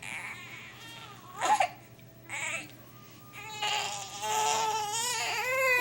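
Infant crying while being burped: a short whimper about a second and a half in, then a long, rising wail from about three and a half seconds in. The parent takes the fussing for the baby straining to work up a burp.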